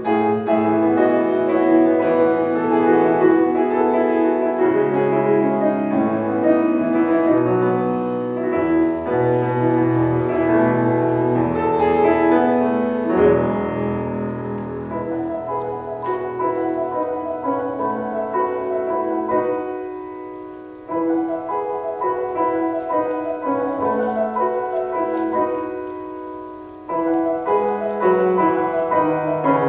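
Solo piano playing with sustained chords. The sound fades down twice, about two-thirds of the way in and again shortly before the end, and each time a new phrase comes in loudly.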